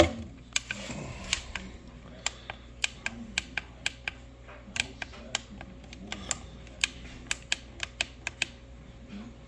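Sharp, irregular plastic clicks and taps from handling a plastic alarm clock, a few a second, with one louder knock at the very start.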